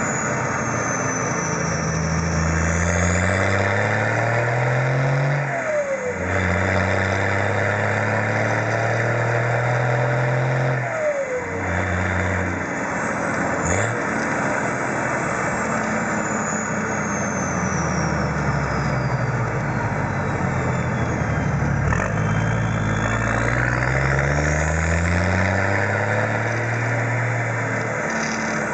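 Turbocharged Toyota 1HZ straight-six diesel pulling through the gears. The engine pitch climbs and drops back at gear changes about 6 and 11 seconds in, and climbs again after about 22 seconds. Over it the Denco turbo whistles high, gliding up and down with the boost.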